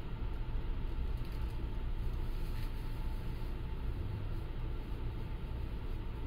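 Steady low drone of a car ferry's engines heard on board, with a faint constant hum over it.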